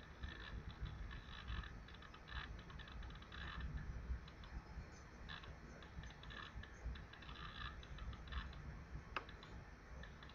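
Computer keyboard typing: faint, irregular key taps, with one sharper click about nine seconds in.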